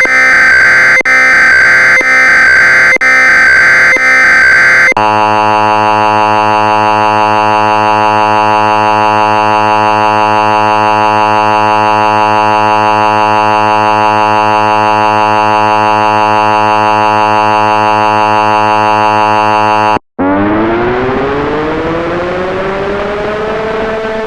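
Emergency Alert System sounds. For about the first five seconds, digital header data tones come in roughly one-second segments. Then a steady, harsh attention tone holds for about fifteen seconds and cuts off abruptly. After a brief gap, a siren starts winding up, rising in pitch and levelling off near the end.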